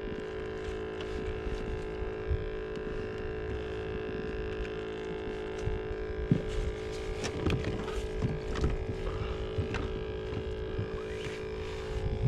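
A steady motor hum, with scattered clicks and knocks that grow busier in the second half.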